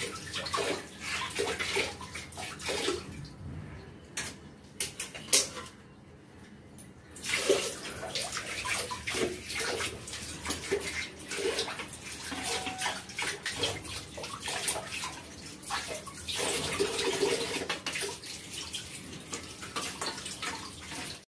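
Tap water running and splashing into a basin while an air conditioner's mesh filter and plastic parts are rinsed and rubbed by hand under it, with scattered splashes and light knocks. There is a quieter stretch for a few seconds near the start.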